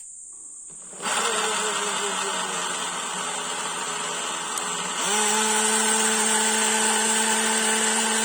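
Atomberg MG1 mixer grinder's brushless (BLDC) motor running, starting about a second in. About five seconds in it steps up to a higher speed with a brief rising whine, then runs steadily.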